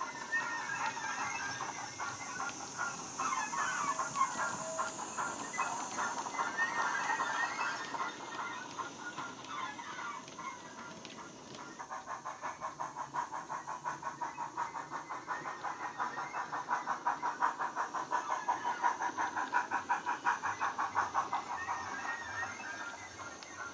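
Steam-locomotive sound from a LokSound 5 micro DCC decoder in a Bachmann model USA tank engine, played through a small sugarcube speaker: exhaust chuffs with a hiss of steam over the first few seconds, settling into a steady, rapid beat from about halfway through.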